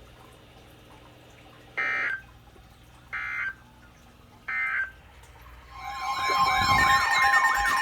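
Emergency Alert System signalling. First come three short buzzy digital data bursts about a second apart. Then, from about six seconds in, a louder alert tone starts, with steady pitches overlaid by wavering, sweeping tones.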